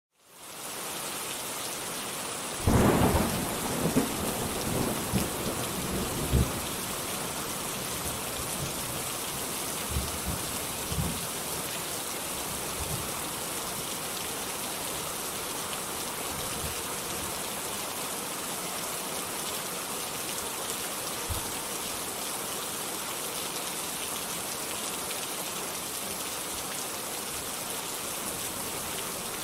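Steady heavy rain, with a loud thunderclap about three seconds in that rumbles on for a few seconds, and fainter rolls of thunder later.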